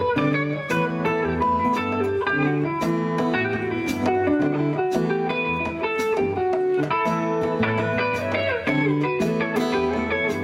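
Live band music: a guitar-led instrumental passage over a steady beat, with no singing.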